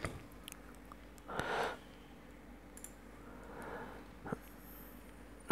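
A person sniffing near the microphone, then a softer breath, with a faint click about four seconds in.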